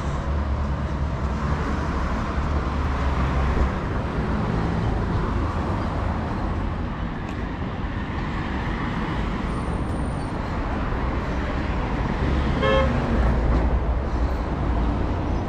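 Busy city street traffic: vehicle engines running close by with a steady deep hum, and one short car horn toot near the end.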